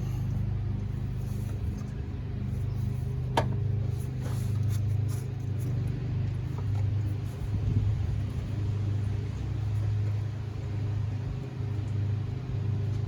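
A steady low mechanical hum runs throughout, with a single sharp click about three and a half seconds in and a few faint knocks from hands working a pipe loose in the engine bay.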